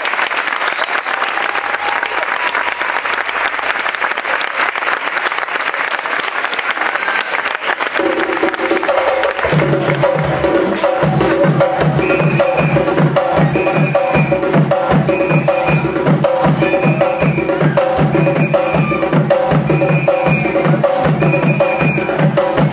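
Audience applauding, then about a third of the way in live African hand drums start up and settle into a fast, steady rhythm. Over the drumming a short high note repeats about once a second.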